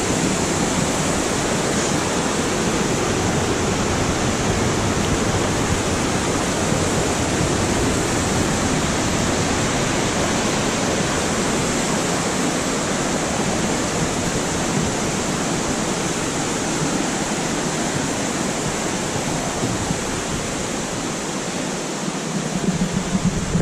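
Creek water rushing steadily over boulders, an even unbroken rush. A few louder bumps near the end.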